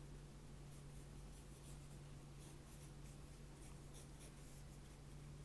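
Graphite pencil sketching on sketchbook paper: faint, short scratching strokes repeated as the paws are drawn.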